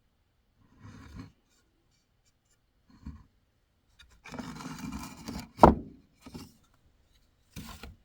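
Short scraping and rubbing strokes on a small birch wood carving, in about five separate bursts, with one sharp knock a little past the middle.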